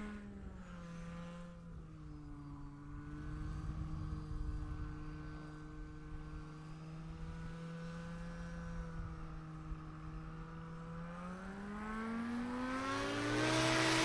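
Turbocharged Edge Performance EPEX 300 Yamaha engine of a Just Aircraft Highlander STOL plane running steadily at low power with the propeller turning. Near the end it revs up, its pitch climbing steeply and getting louder as it goes to full power.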